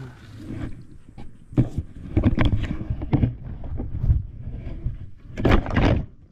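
Dry reed stems and brush rustling and snapping as they are pushed through and trampled: irregular crackling, loudest about two to three seconds in and again shortly before the end.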